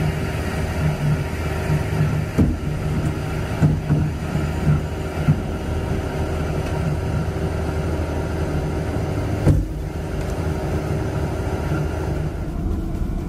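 Steady drone of a stern trawler's machinery as its winch cables haul the net up the stern ramp, with a few sharp knocks, the loudest about nine and a half seconds in.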